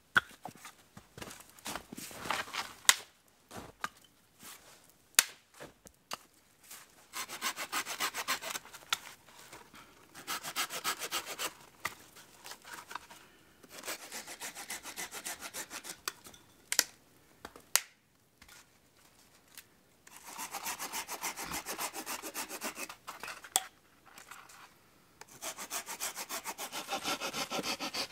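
Hand saw cutting through branches for firewood, in several bouts of quick back-and-forth strokes, each a few seconds long, with pauses between them. A few sharp knocks come between the bouts.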